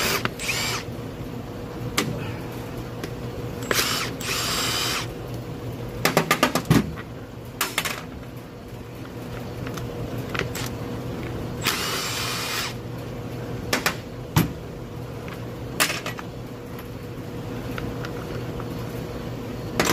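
Cordless 3/8-inch impact wrench run in three short bursts on the bolts of a planter wheel, taking out loose bolts; the middle burst, about six seconds in, is rapid hammering blows. Sharp clicks of metal handling come between the bursts.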